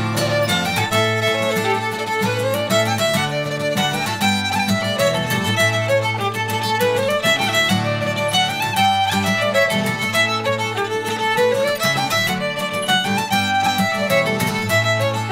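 Lively Shetland fiddle tune played at a quick, driving pace, with guitar accompaniment underneath.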